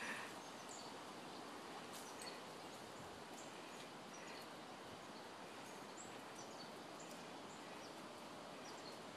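Quiet woodland ambience: a steady faint hiss of outdoor background noise, with a few faint, short, high bird chirps scattered through it.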